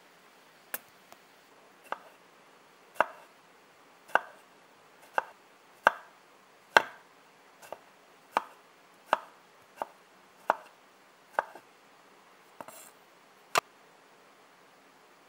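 Freshly sharpened steel kitchen knife cutting a tomato on a wooden cutting board, each cut ending in a short, sharp knock of the blade on the board. About fifteen knocks come at roughly one a second and stop shortly before the end.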